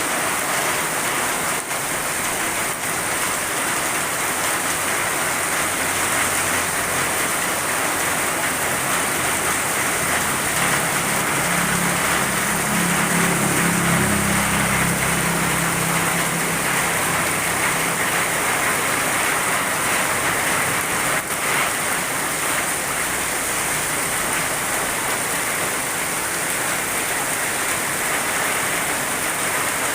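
Heavy rain pouring down steadily in a dense, even hiss. A low rumble swells and fades in the middle.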